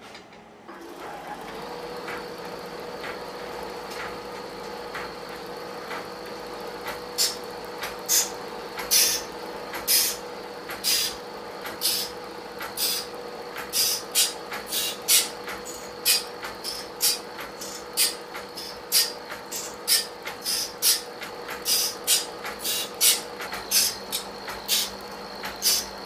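Sawmill machinery starts about a second in and runs with a steady hum. After several seconds, sharp, noisy working strokes begin and repeat at an even pace, roughly one to two a second.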